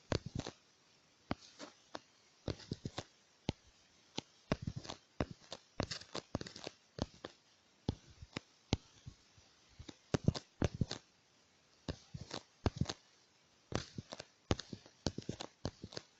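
Fingers tapping and handling a smartphone: irregular light taps and clicks, sometimes one at a time and sometimes in quick clusters, with short pauses between.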